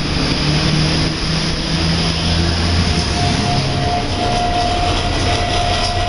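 Mud Island monorail car running along its track, a steady rumble with a low hum, and a thin whine coming in about halfway through.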